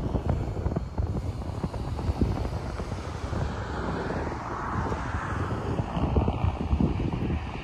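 Wind buffeting the microphone over a low traffic rumble. A passing vehicle's noise swells and fades about three to six seconds in.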